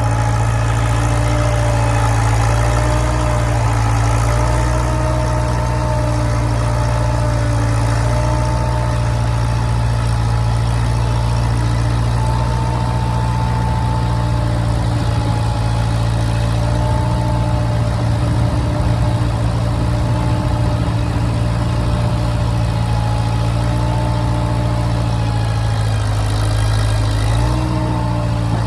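An engine running steadily at a constant speed, its pitch wavering slightly now and then, with a small shift in pitch near the end.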